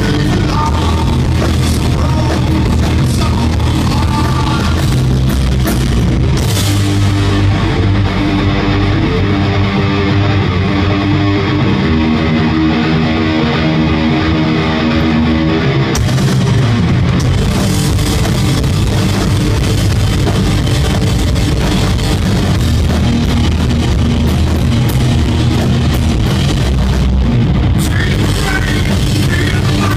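Live heavy rock band playing loud, with distorted electric guitars, bass and drums. About eight seconds in the cymbals and drums drop out for several seconds, leaving sustained guitar and bass notes ringing, then the full band crashes back in about halfway through.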